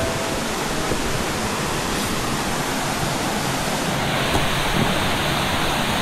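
Mountain valley stream rushing over rocks, a steady loud rush of water; its hiss changes slightly about four seconds in.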